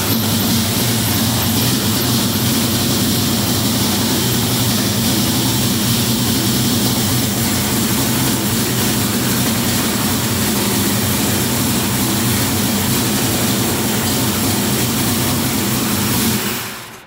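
1971 Camaro's carbureted stroker V8 idling steadily right after a cold start, engine still cold. The sound fades away near the end.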